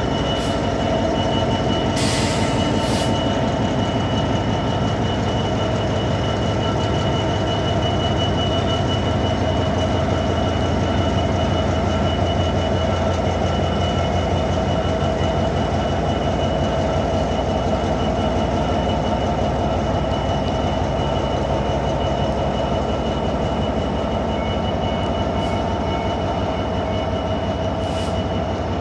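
Train running steadily, a deep rumble under several constant whining tones, with a couple of sharp clicks about two seconds in.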